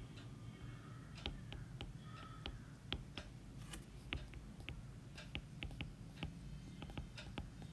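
Writing by hand: light, scattered taps and clicks of a pen, over a low steady hum.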